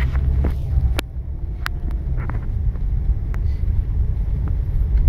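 Low, steady rumble of a heavy-duty diesel pickup rolling slowly over a dirt lot, heard from inside the cab, with a few light clicks.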